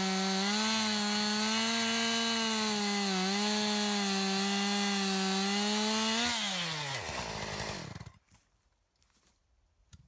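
Two-stroke chainsaw running at high revs while cutting into a tree trunk on the back cut. Its pitch dips and recovers as the chain loads in the wood. About six seconds in, its pitch falls away and it goes quiet.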